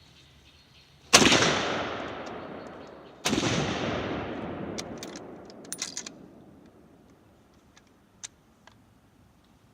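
Two gunshots about two seconds apart, each followed by a long echo that dies away over a couple of seconds, then a few light clicks.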